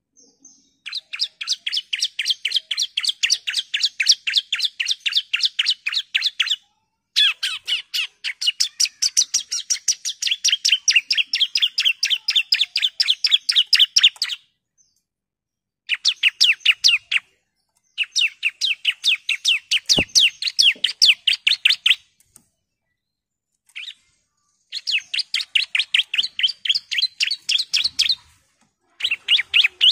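Bar-winged prinia (ciblek) singing its rapid, evenly repeated chirping song, about nine high notes a second. The notes come in long runs of several seconds with short pauses between them.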